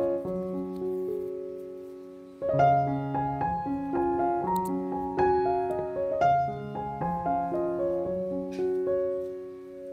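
Background solo piano music, a slow, gentle melody of single notes and chords. One phrase fades out and a new one starts about two and a half seconds in.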